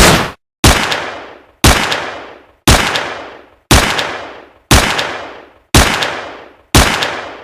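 Gunshot sound effect: seven single shots about a second apart, each followed by a fading echo. The last of a quicker run of shots ends just before the first of them.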